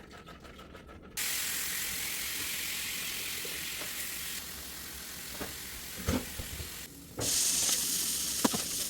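Food sizzling in a hot pan, starting suddenly about a second in, breaking off briefly near seven seconds and coming back louder, with a few sharp knocks of a utensil against the pan.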